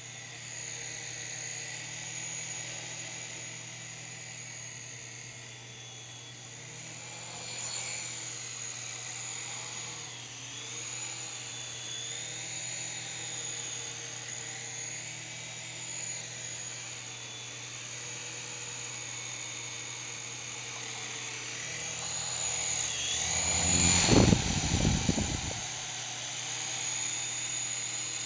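S107G mini RC helicopter's small electric motors and coaxial rotors whining in flight, the pitch gliding up and down as the throttle changes. About 24 s in it gets louder, with a brief low rushing noise.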